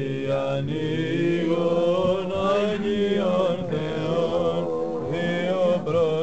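Voices chanting slowly, holding long notes that bend gently up and down.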